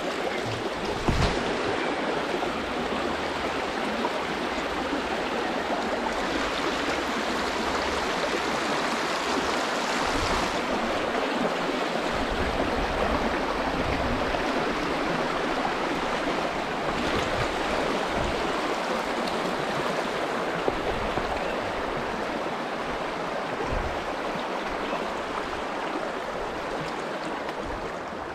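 Shallow river rapids rushing steadily over boulders. A few short low thumps sound over it, the loudest about a second in.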